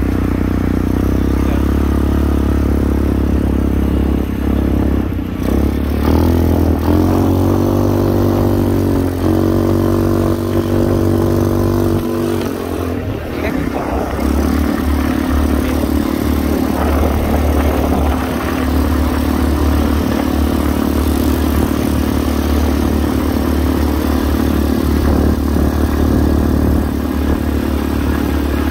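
Quad bike engine running under way. Its note climbs in a few rises between about 6 and 12 seconds in, then holds steady.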